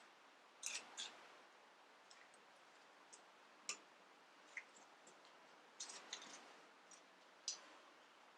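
Scattered small sharp clicks and taps of a metal CV boot band clamp being handled and set into a band-clamp tool, bunched about a second in and again around six seconds in, over a quiet room.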